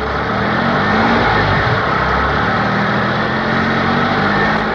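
Car engine sound effect, running steadily and rising slightly in pitch about a second in.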